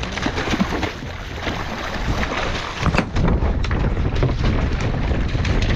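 Wind rumbling on the microphone aboard a small fishing boat, with water noise along the hull. There is a sharp knock about three seconds in.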